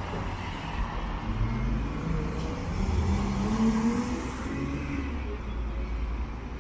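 Downtown street traffic: a motor vehicle's engine rises in pitch as it accelerates past, loudest a few seconds in, over a steady low traffic rumble.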